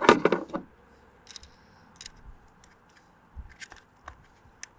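Small, scattered clicks and light scrapes of a screw and nut being fitted by hand into a quick-release attachment plate on a rowing foot stretcher.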